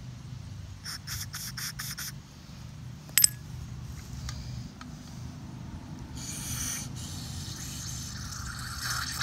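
Quick scraping strokes on a carburetor as dirt is cleaned off it, with more scraping near the end and a single sharp clink about three seconds in.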